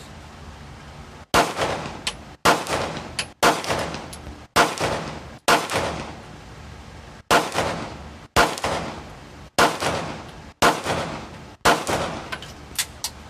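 Ten gunshots fired at a steady pace of about one a second, with a short pause after the fifth, each shot trailing off in a decaying echo. Fainter sharp ticks follow a few of the shots.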